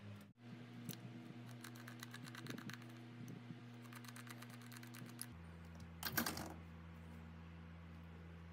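A run of small, sharp taps and clicks, spaced out at first and then coming fast, about ten a second, around four seconds in. About six seconds in comes a brief louder scraping rustle. A steady low hum runs underneath.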